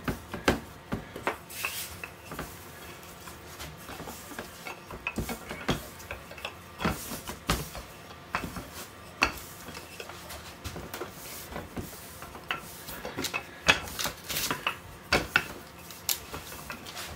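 Bread dough being pressed out by hand and rolled with a wooden rolling pin on a paper-lined metal baking tray, with irregular light knocks and clicks of the pin and tray.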